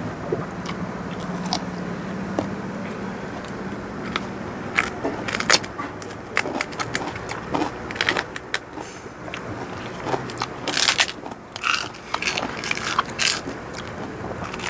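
Crunching bites and chewing of crispy pork chicharon and fresh lettuce leaves: many short, sharp crackles, thickest from about four seconds in. A steady low background hum underlies the first few seconds.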